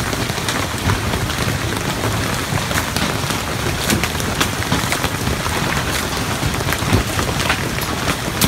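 Hailstorm: a dense, steady hiss of rain and falling hail, broken by frequent sharp knocks of large hailstones striking.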